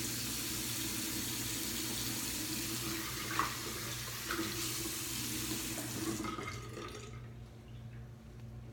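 Tap water running into a sink, shut off about six seconds in.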